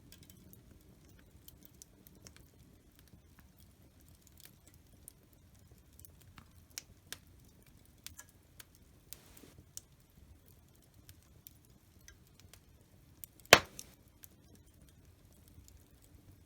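Wood fire crackling in a fireplace: scattered sharp pops and clicks over a low background rumble, with one much louder crack about three-quarters of the way through.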